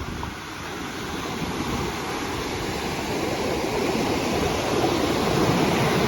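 Ocean surf washing in on the shore, a steady rush that swells gradually and peaks near the end.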